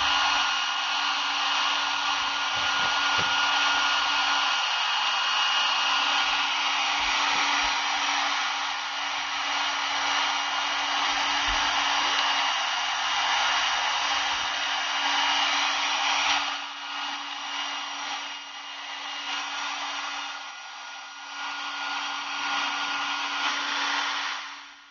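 Handheld electric blower running steadily with a loud rushing hiss and a thin whine, blowing dust out of the inside of a desktop PC. The rush weakens and wavers about two-thirds of the way through and cuts off just before the end.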